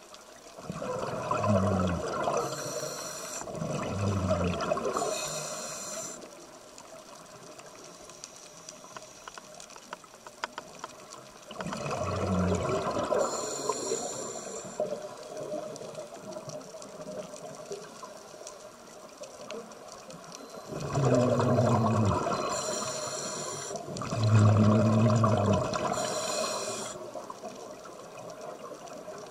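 Scuba regulator breathing: about five breaths, each a bubbling, gurgling exhalation paired with a short hiss from the regulator, with quiet stretches of underwater hiss between them.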